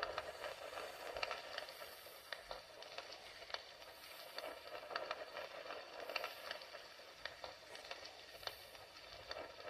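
Fire crackling: irregular sharp pops over a steady hiss.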